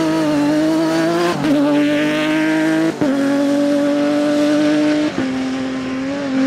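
Rivet Nissan rally car's engine held at high revs as the car drives by on a gravel stage. The note breaks briefly three times, about a second and a half, three and five seconds in, settling a little lower after each break.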